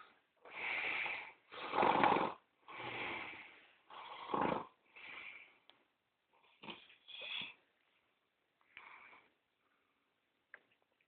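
A sleeping man snoring heavily, one snore about every second. The snores grow weaker and die away about two-thirds of the way through, leaving only a few faint breaths and small clicks.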